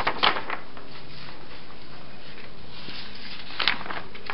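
Sheets of printer paper rustling and sliding against each other as they are handled and laid down, in a few short bursts at the start and once more near the end, over a steady background hiss.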